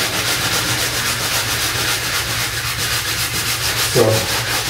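Drywall joint compound on a patched wall being sanded by hand in rapid, even back-and-forth strokes. The light sanding feathers the patch's edges into the wall to ready it for paint.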